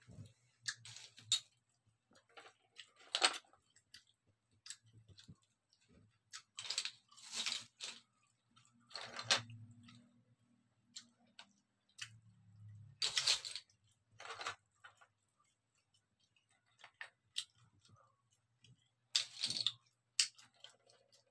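Close-up eating sounds: irregular clicks and scrapes of chopsticks and fingers against scallop shells, with chewing and a few longer wet mouth sounds of about a second each.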